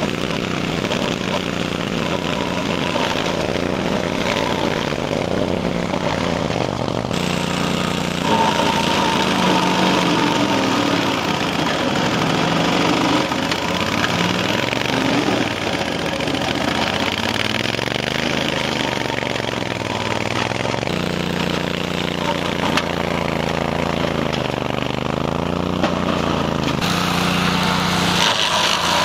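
Tracked remote-control brush mower with a Honda iGXV800 V-twin petrol engine running hard while its rotary blade cuts into gorse. In the second half the engine note repeatedly dips and recovers as the blade meets the thicker stems.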